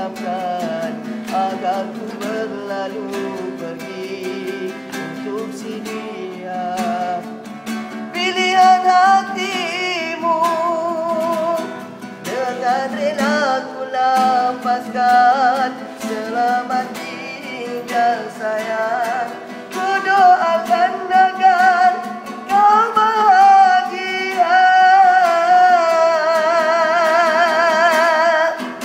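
A man singing a Malay love song without pause, in long drawn-out melodic runs and held notes with wide vibrato, over acoustic guitar strumming.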